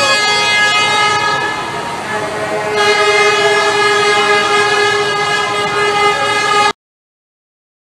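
Long, steady vehicle horn blasts, several pitches sounding together over crowd noise, with a second horn joining about three seconds in; the sound cuts off suddenly near the end.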